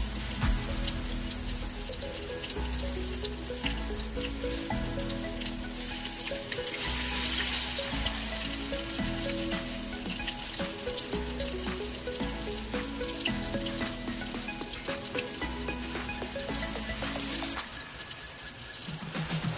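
Eggplant omelette frying in hot oil in a wok: steady sizzling with fine crackling pops, swelling briefly about seven seconds in. Instrumental background music plays underneath.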